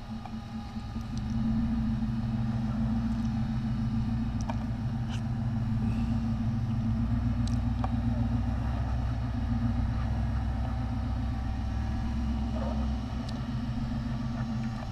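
Off-road rock crawler's engine running steadily at low revs, picking up slightly about a second and a half in and then holding.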